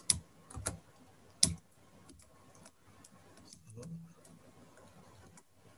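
Computer keyboard keys being typed in a few separate clicks, the loudest in the first second and a half, then fainter scattered taps.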